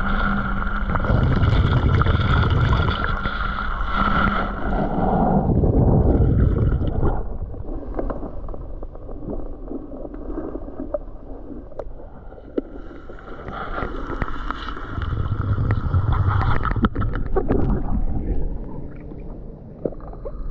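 Underwater sound of a snorkeler swimming: muffled rushing and gurgling of water around the camera, with low surges that come and go. Steady humming tones fade out about five seconds in and return for a few seconds in the second half.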